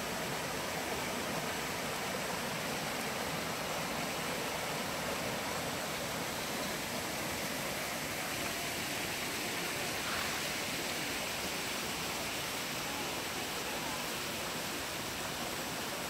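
Water of a shallow rocky mountain stream running over stones and small cascades, a steady even noise.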